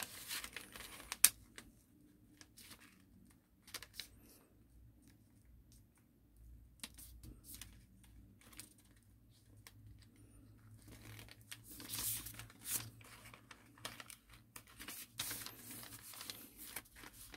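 Origami paper being folded and creased by hand: scattered soft crinkles and rustles with a sharp crackle about a second in. It goes nearly quiet around five to six seconds, then rustles again in clusters in the second half.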